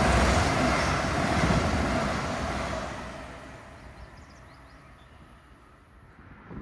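A passing CT Rail Shoreline East train: the rumble and rail noise of its wheels, loud at first and fading away over about three seconds as it recedes.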